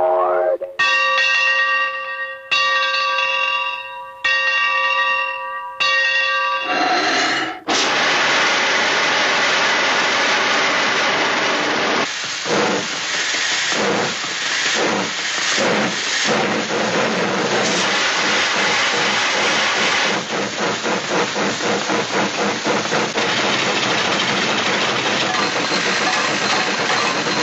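Classic cartoon sound effects: four held, whistle-like tones with short gaps between them, then a long, loud hiss like escaping steam.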